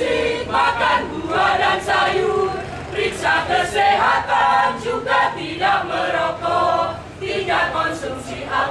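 A group of voices singing together in short phrases of about two seconds each, with sharp clicks now and then.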